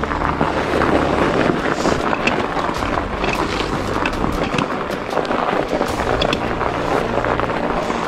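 Fat bike ridden over crusty snow: the wide knobby tyres crunch along while the bike rattles and clicks over bumps, with wind buffeting the microphone.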